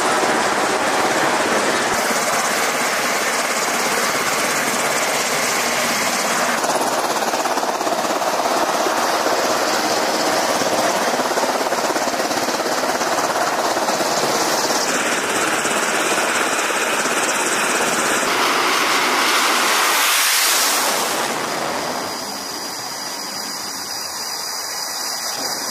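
Aircraft carrier flight deck noise: the steady roar of jet engines running, changing in tone at several points, briefly louder about twenty seconds in, then settling to a quieter roar near the end.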